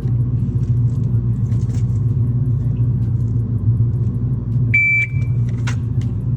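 Steady low engine rumble, as of a car running. A short high electronic beep sounds a little under five seconds in, followed by a faint click.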